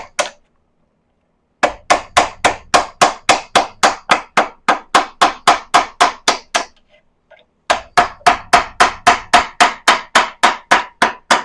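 Steady hammer taps on a Hummer H2 V8 engine part to drive it loose, about three sharp strikes a second. The taps come in two long runs with a brief pause in between, after a quiet first second and a half.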